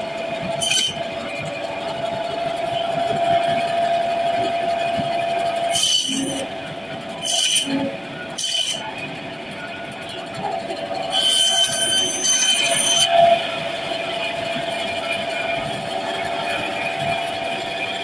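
Electric band saw running with a steady whine. Several short, harsh rasps come from the blade cutting through raw fish and bone, the longest a little past halfway through.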